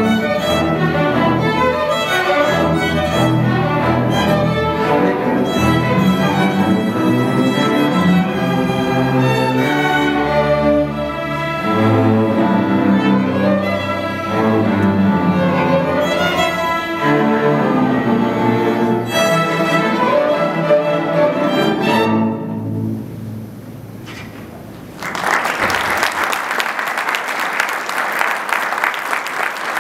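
A string orchestra of violins and cellos plays the closing bars of a piece, stops about 22 seconds in and rings away. A few seconds later the audience breaks into steady applause.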